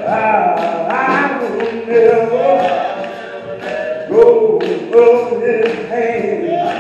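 A small mixed gospel vocal group, men and a woman, singing together into microphones, holding long notes in harmony.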